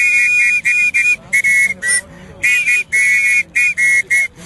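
Small plastic harmonica blown in a quick run of short, high-pitched notes, often two reeds sounding together, with a breathy hiss behind them.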